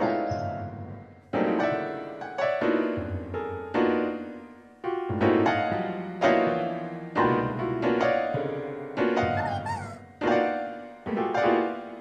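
Piano playing slow, sad music: a new chord struck about once a second and left to fade before the next.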